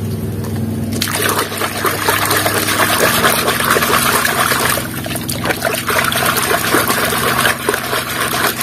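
Water splashing and sloshing in a basin as a hand swishes a yellow plastic toy backhoe back and forth through muddy water to wash it. The splashing starts about a second in and keeps on steadily.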